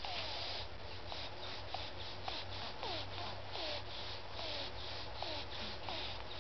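Sleeping baby snoring: a rhythmic rasping hiss pulsing about three to four times a second, with short falling squeaks now and then.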